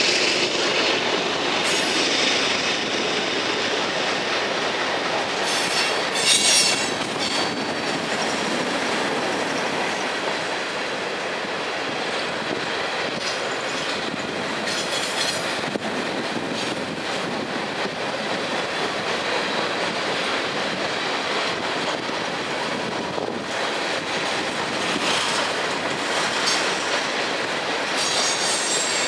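Empty covered hopper cars of a freight train rolling past steadily, with wheels clattering over the rail and several spells of high wheel squeal, the loudest about six seconds in.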